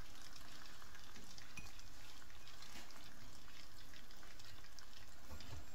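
Cream sauce with penne sizzling faintly in a stainless steel pan on the heat: a steady soft sizzle with small crackles.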